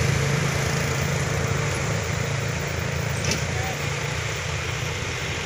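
Road traffic: the steady low drone of truck engines with motorcycles passing, easing off slightly after the first couple of seconds.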